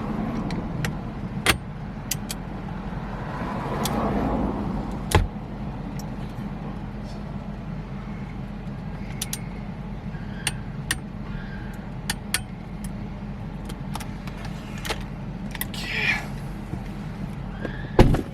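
Scattered metallic clicks and clinks of hand tools and a loose bolt while a steering wheel is bolted onto the car's steering column. A few louder knocks come about five seconds in and near the end, over a steady low hum.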